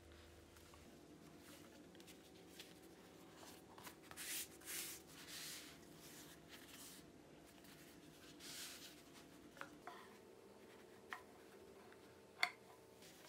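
Soft rustling and swishing of a flour tortilla being folded and handled on a wooden cutting board, followed by a few small clicks and a sharp snip of kitchen scissors cutting into the tortilla near the end.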